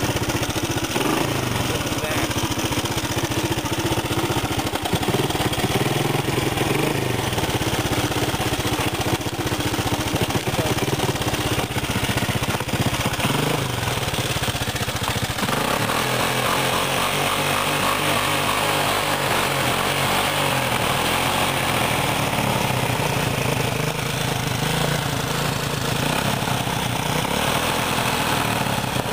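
Honda four-wheeler (ATV) engine running as it drives through an icy, muddy puddle, its note changing about halfway through.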